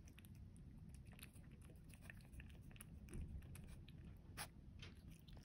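Korat cat eating dried bonito flakes: faint, scattered crunching and clicking of chewing, with one sharper click about four seconds in.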